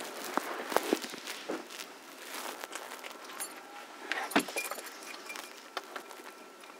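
Scattered light clicks and rustles of a man putting on his sneakers, with one sharper knock about four seconds in.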